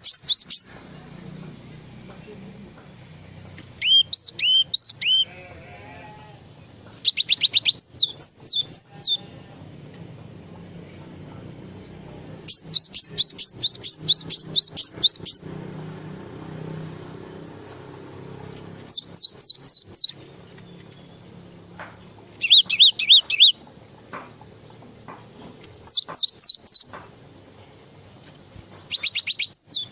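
Glatik songbird singing: bursts of rapid, high, repeated chip notes, each lasting from under a second to nearly three seconds, with pauses of a second or more between them.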